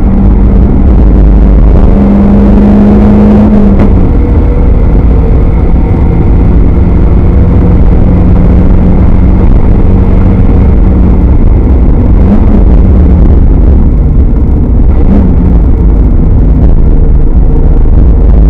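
Mazda Spec Miata's four-cylinder engine running hard under load, heard from inside the car; very loud and steady. The pitch shifts about four seconds in and briefly rises twice later.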